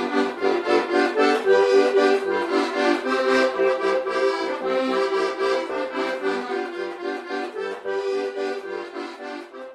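Instrumental traditional folk tune with a quick, rhythmic run of notes, getting gradually quieter over the second half and ending just before the close.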